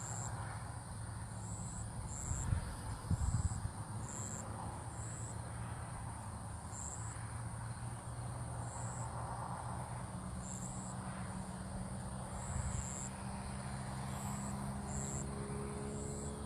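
Crickets chirping: short, high chirps repeating roughly once a second over a steady high insect trill, with a low steady hum underneath.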